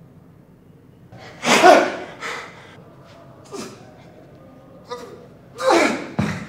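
A person's short, forceful, breathy vocal bursts, two loud ones about a second and a half in and near the end, with smaller ones between. A low thud near the end, as a body lunges onto the floor.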